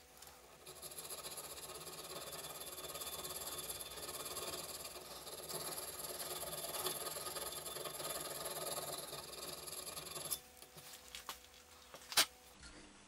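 A small round file rasps steadily through the hole of a brass disc held in a vise, easing the hole so a brass tube will fit. It stops about ten seconds in and is followed by a few light clicks and one sharp click near the end.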